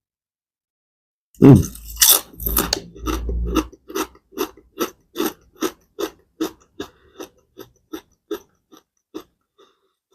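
A kettle-fried potato chip crunched in the mouth close to the microphone: a loud bite about a second and a half in, then steady chewing at about three chews a second that grows fainter and stops near the end.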